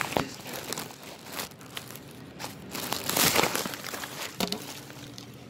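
Irregular rustling and scuffling close to the microphone, as a puppy moves and brushes against the bedding right by the phone. It is loudest for a moment about three seconds in.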